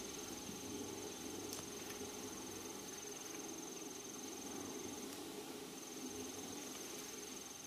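An insect, such as a cricket, trilling steadily at a high pitch, breaking off for under a second about five seconds in, over a faint low steady hum.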